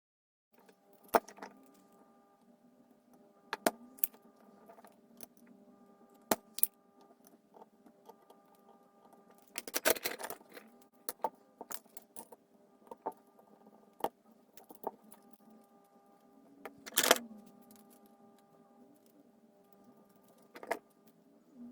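Sharp clicks and clinks of small hard parts or tools being handled, with two longer scraping, rustling bursts, over a steady low hum.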